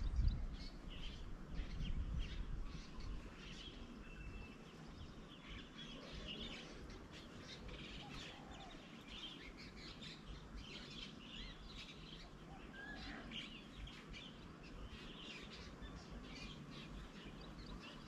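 Several small birds chirping and calling in short, scattered high notes, overlapping throughout. A low rumble dies away in the first second.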